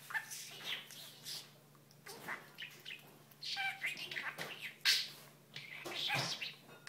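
Pet budgerigar chattering in a fast run of short chirps and warbled, speech-like phrases; it is a talking budgie that mimics little French sentences.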